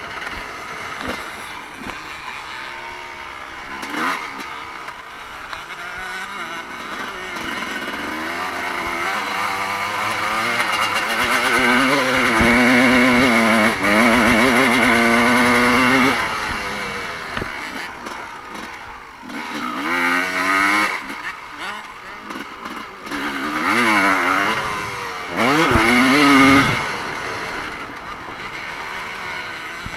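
Motocross bike engine revving hard and easing off again and again as it is ridden round the track, the pitch climbing and dropping. It is loudest about twelve to sixteen seconds in, with shorter bursts of throttle later on.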